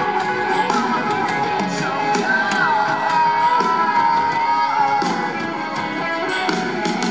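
Live rock band playing, with electric guitars and drums; a little after two seconds in, a high sustained note bends downward and is held for about two seconds.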